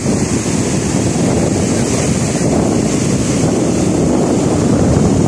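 Small sea waves breaking and washing up onto a sandy beach, with wind buffeting the microphone in a steady, loud rumble.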